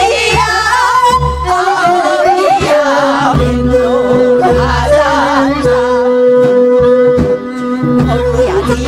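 Group of women singing a Korean folk song (minyo) together through microphones, with wavering, ornamented vocal lines over a steady instrumental accompaniment.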